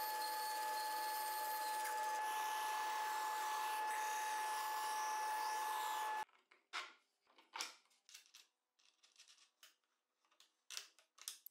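A bandsaw cutting a curve in plywood, then a disc sander smoothing the rounded plywood end, both running steadily with a constant whine. The machine noise cuts off about six seconds in, followed by scattered light knocks and clicks of plywood parts being fitted by hand.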